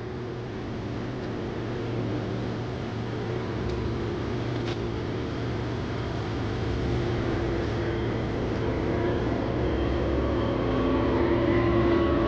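Motorcycle on the move: steady engine and road noise that grows gradually louder, with a faint engine tone coming through near the end.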